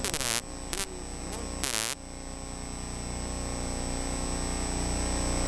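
Steady electrical hum and buzz on a radio broadcast with no commentary, made of several even pitched lines and a thin high whine. About two short bursts of static with warbling whistles break in during the first two seconds.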